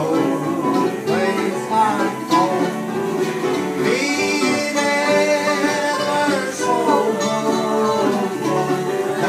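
Acoustic old-time string band playing: fiddle, acoustic guitar and upright bass, with a man singing along.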